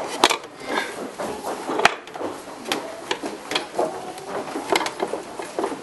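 Irregular sharp wooden clicks and knocks as hands work the slats and holes of a wooden panel, with faint voices behind.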